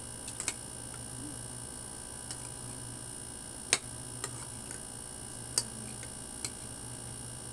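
A spoon clinking against a bowl while eating: a handful of sharp, irregularly spaced clicks, the loudest about halfway through, over a steady low hum.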